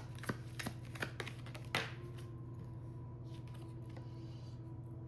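Tarot cards being handled, making a quick run of light clicks and snaps in the first two seconds, the last and loudest just before the two-second mark. After that only a low steady hum remains.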